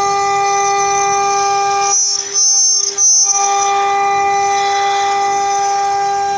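CNC router spindle cutting aluminium-plastic composite panel: a steady, high-pitched whine of several even tones. About two seconds in, the whine breaks off for roughly a second while a shriller, higher sound takes over, then it returns.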